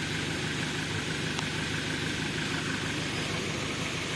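An engine running steadily, an even low rumble.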